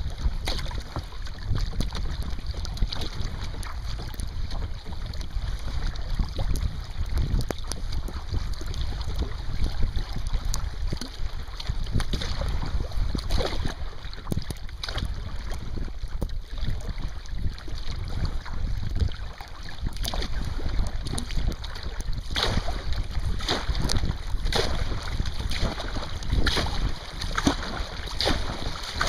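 Wind buffeting the microphone over a low rumble, with choppy water slapping and splashing against a moving sea kayak's hull and paddle. The splashes come sharper and more often in the second half.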